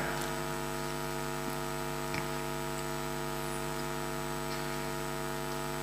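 Steady electrical mains hum, low and buzzy, with one faint click about two seconds in.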